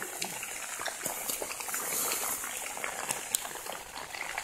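Heavy rain falling steadily on palmetto scrub and the phone, a constant hiss dotted with many small drop taps.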